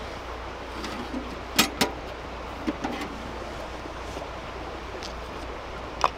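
A few sharp clicks and knocks over a steady rushing hiss: two clicks in quick succession about a second and a half in, two softer knocks a second later, and one more click near the end.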